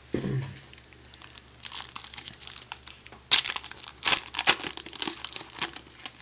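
Foil wrapper of a 2012 Bowman baseball card pack crinkling as it is handled and torn open, quieter at first and then a run of loud, sharp crackles through the second half.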